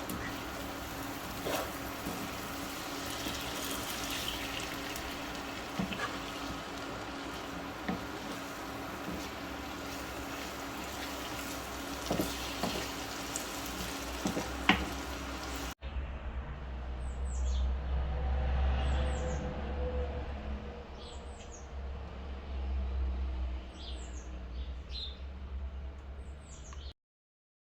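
A steady hiss with scattered clicks and a low hum, like food sizzling in a pan, until an abrupt cut. After the cut, a low wind-like rumble with bird chirps: short, falling high calls repeated every couple of seconds, before the sound stops.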